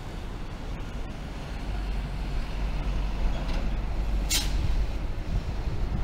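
Steady low outdoor rumble, with one short sharp hiss about four seconds in.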